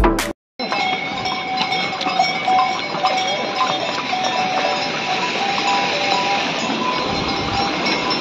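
Many bells on a passing string of ponies and mules, jingling and clinking without a break over a steady hiss. A moment of background music ends at the very start, followed by a brief dropout.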